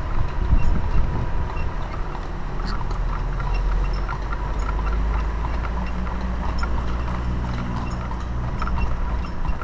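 Carriage horse's hooves clip-clopping on paved road as it walks, pulling the buggy, over a steady low hum.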